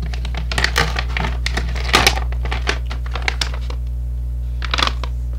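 Crackling and crinkling of a jerky bag being handled and opened at its side seal, in bunches of sharp crackles about half a second to two seconds in, loudest around two seconds, and again near the end, over a steady low hum.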